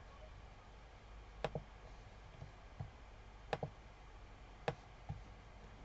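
Faint computer mouse clicks: about eight short clicks, two of them quick double clicks, over a faint steady low hum.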